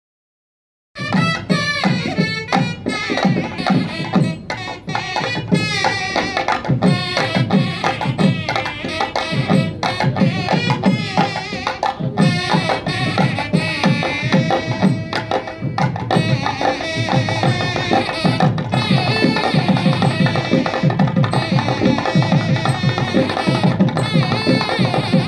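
Background music with a steady percussive beat; the sound is cut out completely for about the first second.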